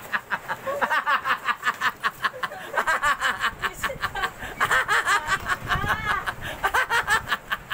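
A man laughing hard, a long run of quick repeated ha-ha pulses with a few short pauses.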